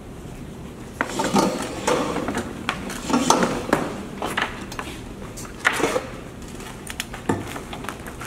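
Irregular clatter and clinks of objects handled on a table, heaviest in the first half and thinning out near the end.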